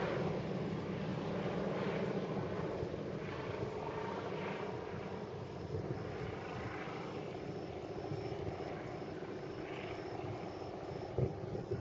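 Propeller aircraft engine droning steadily overhead as the plane flies off, slowly fading.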